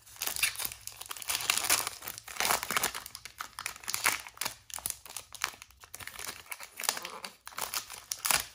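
Foil trading card pack being torn open and crinkled by hand: an irregular run of crackling and tearing of the metallic wrapper as the cards are pulled out.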